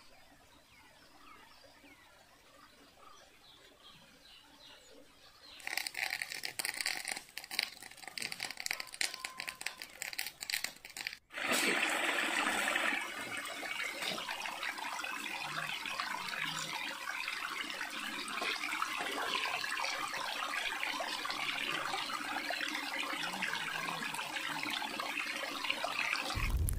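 Small rocky stream trickling and flowing steadily. The water comes in abruptly after a brief dropout about eleven seconds in. Before it there is a faint quiet stretch, then a few seconds of irregular crackling noise.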